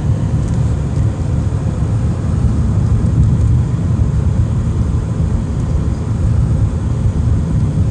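Steady low rumble of road and wind noise heard from inside a moving car.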